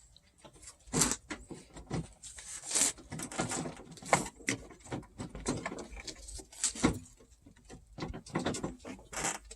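Irregular clicks, knocks and rustling of hands working on a car's headlight assembly to get at the low beam bulb.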